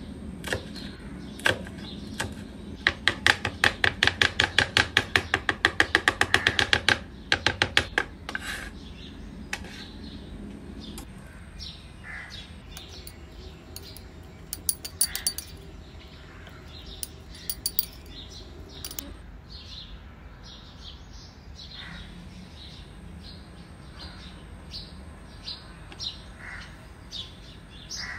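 A large kitchen knife rapidly chopping green herbs on a wooden cutting board, about seven strokes a second for several seconds. Scattered lighter taps and clicks follow as a spoon works garlic butter in a glass bowl and spreads it on bread.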